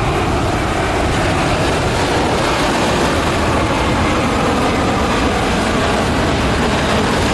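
C-17 Globemaster III's four turbofan jet engines running loud and steady with a heavy low rumble as the aircraft passes.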